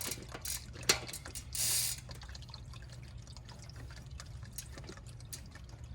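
Wrench loosening the second 17 mm rear axle nut on a BMX bike: scattered metal clicks, a sharp click about a second in and a short rasp just after, then lighter ticks.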